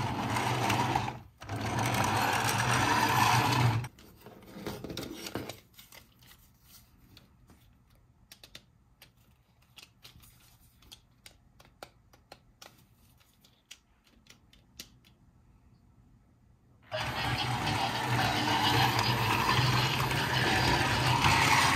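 Battery-powered toy train's electric motor and plastic gears whirring as it drives along. It stops about 4 seconds in, and there are only scattered light clicks of plastic handling until the motor starts up again about 17 seconds in.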